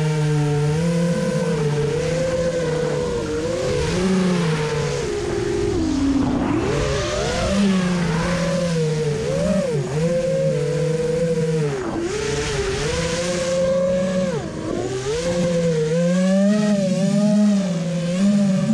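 Small FPV drone's electric motors and propellers whining loudly, the pitch sliding up and down again and again as the throttle changes, with deep dips about six and twelve seconds in, over a rush of air.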